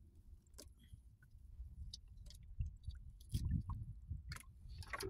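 Wet fishing net being hauled in by hand over a wooden boat's gunwale: soft squishing and scattered small clicks over a low rumble.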